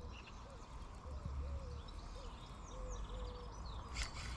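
Shimano spinning reel being wound in, retrieving a Mepps spinner: a faint short whine repeating about twice a second, one per turn of the handle, with a single sharp click near the end. Birds chirp in the background.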